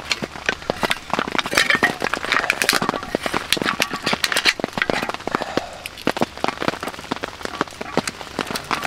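Hands cracking and peeling the dark shell of a piece of cooked food, many sharp clicks and cracks packed most closely about two seconds in, over steady rain dripping on a tarp.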